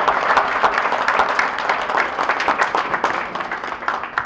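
Audience applauding: many people clapping, thinning out near the end.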